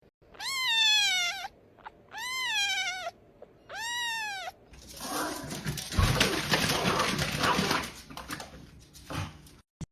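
A pet, a cat or a dog, gives three high cries of about a second each, each rising then falling in pitch. Several seconds of rustling, scuffling noise follow.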